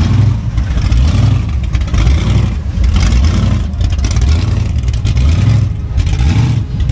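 Supercharged V8 of a Chevrolet Chevelle SS, its blower standing up through the hood, rumbling at low speed as the car rolls by. The rumble pulses in a rough, uneven beat of about two a second, the choppy lope of a big-cammed engine just off idle.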